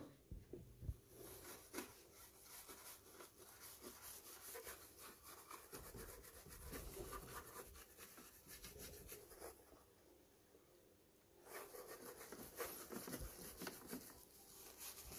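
Faint scratchy brushing of a bristle paintbrush scrubbing the plastic front panel of a boombox. It pauses about ten seconds in and resumes a second or so later.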